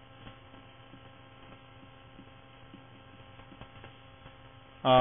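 Steady electrical mains hum in the recording, with a few faint ticks.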